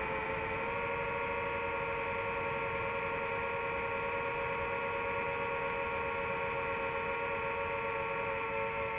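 Quadcopter drone's motors and propellers whining steadily in several high tones over a rushing hiss, stepping slightly up in pitch about a second in.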